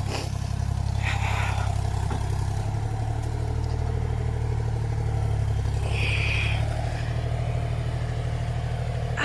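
Excavator engine running steadily with a deep, even drone, with two brief hissing noises over it.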